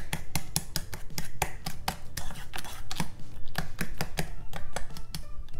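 Fork mashing a banana in a stainless steel bowl: quick, repeated clicks and scrapes of the fork against the metal, several a second, as the fruit is worked until the lumps are gone.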